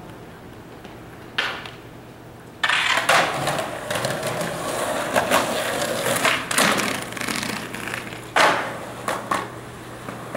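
Skateboard wheels rolling on rough concrete, starting suddenly a couple of seconds in, with a loud clack of the board hitting the ground around eight seconds and two lighter clacks just after. A single sharp knock comes before the rolling starts.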